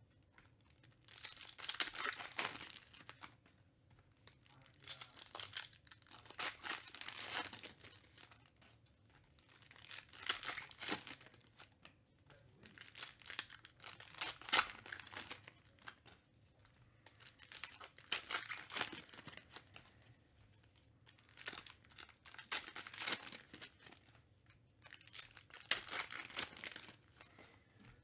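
Foil wrappers of Panini Select UFC trading-card packs crinkling and tearing as they are opened by hand, in bursts every few seconds.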